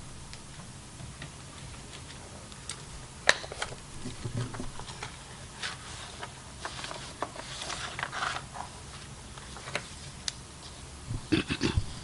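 Papers rustling and being handled at a lectern close to the microphone, with a sharp knock about three seconds in and a few low thumps near the end.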